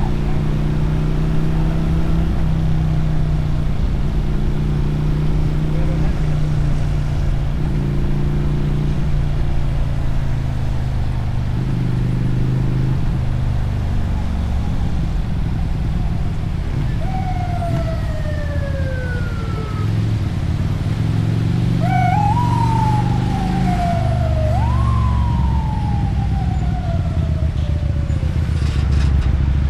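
Motorcycle engine running under way, its pitch stepping up and down with throttle and gear changes in the first half. From about halfway, a siren wails over it, rising quickly and falling slowly several times.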